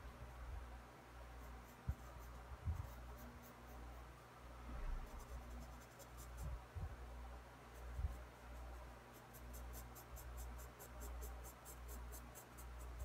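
Pencil scratching on sketchbook paper in short strokes, ending in a quick run of about five strokes a second. A few faint low knocks and a steady low hum sit underneath.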